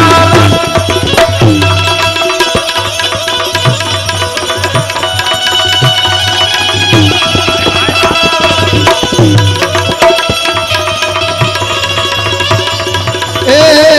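Instrumental interlude of Gujarati folk devotional music: tabla playing a steady rhythm with bass strokes that bend in pitch, under held notes from a melody instrument, with no singing.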